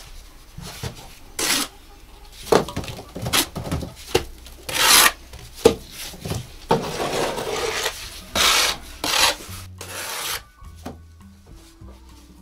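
Plaster mortar being spread and scraped onto a rough cinder-block wall with a trowel: a dozen or so irregular rasping strokes that thin out near the end.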